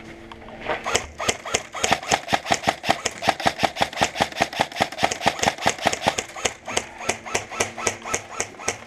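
Airsoft gun firing a rapid, evenly spaced string of shots, about five or six a second, starting about a second in.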